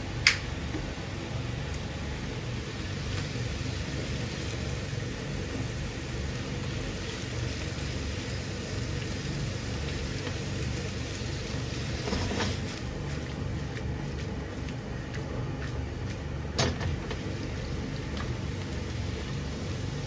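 Udon noodles, sausage and cabbage frying in a frying pan with Worcestershire sauce, a steady sizzle and hiss as they are tossed with chopsticks. A sharp click of the chopsticks against the pan comes just after the start, and two more come later.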